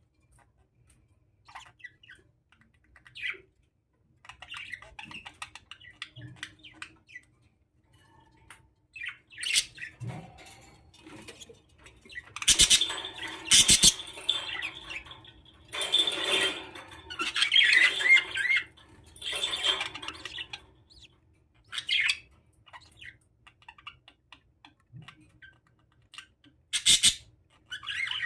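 Budgerigars chirping and squawking in short bursts, sparse at first and loudest through the middle, as newly hatched chicks are fed. A few brief sharp rustles or flutters are mixed in.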